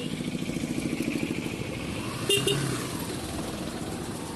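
Motorcycle engine running steadily while riding, with one brief horn toot about two seconds in.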